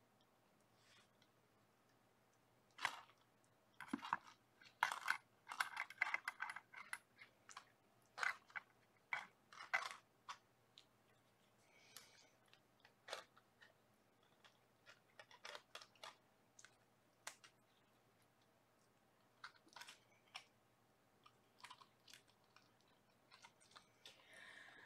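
Faint rustling and light clicks in scattered flurries: kittens scrambling and playing on cloth.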